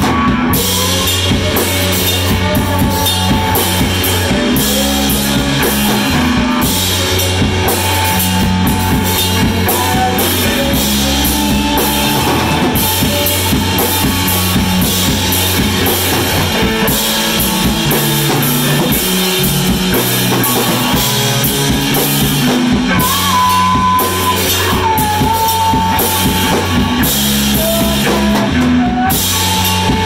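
A live rock band plays electric guitars and a drum kit, with a low line moving in steps underneath and some bending lead notes in the later part.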